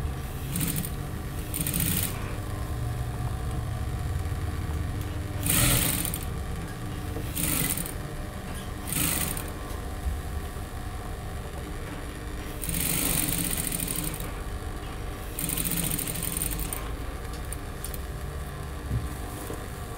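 JAKI industrial sewing machine stitching a seam through layered garment fabric. Its motor hums steadily, and the noise swells in several short runs of stitching.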